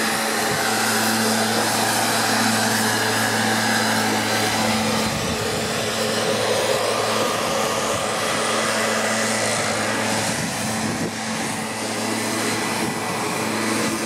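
Backpack leaf blower running at a steady speed: a constant engine hum under a rushing blast of air.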